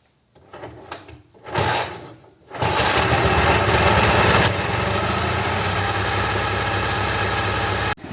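First start of a Ural boxer-twin motorcycle engine: a couple of short cranking spurts, then it fires about two and a half seconds in and runs, a little louder for the first couple of seconds, then settling to a steady idle through a 'bomba' muffler.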